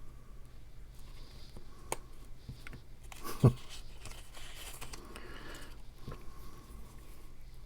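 Cardstock pieces being handled, turned and slid about on a work surface, with faint rustling and small clicks and one soft knock about halfway through.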